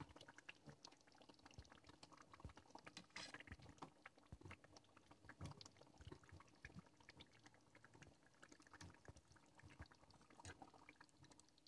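Faint sounds of fish curry simmering in a metal kadai: the gravy bubbling with small irregular pops, and occasional soft clinks and plops as fried fish pieces are lowered in with a metal slotted spoon.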